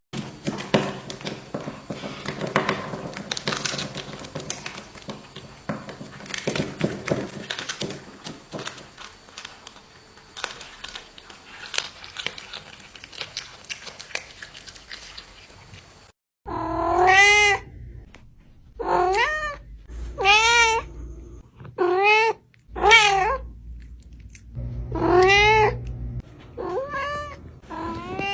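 Domestic cat meowing over and over: about seven loud meows, each rising then falling in pitch, in the second half. Before that come scattered clicks and rustling.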